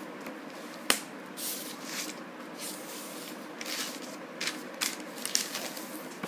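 Paper rustling as the pages of a spiral-bound notebook are turned, in several short rustles, with a sharp click about a second in.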